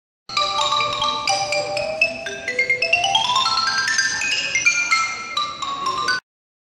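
Music of quick, bright mallet-percussion notes, with a run climbing in pitch midway, cutting off abruptly near the end.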